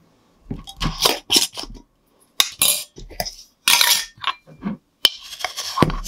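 Metal screw lid of a glass mason jar being twisted off in several short scraping turns, metal grating on the glass threads. About five seconds in, a metal measuring spoon clicks against the glass and digs into granulated sugar with a gritty crunch.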